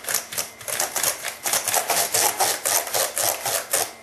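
Soft brush scrubbing back and forth across a Dell laptop's keyboard keys in quick short strokes, about five a second, stopping near the end.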